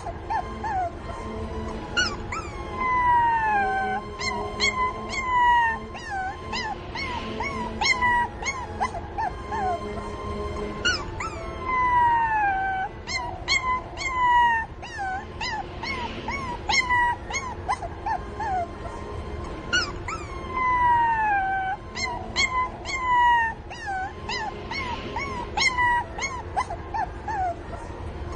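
Several young puppies whining and yelping: many short high-pitched yips mixed with long cries that fall in pitch, calling for their mother.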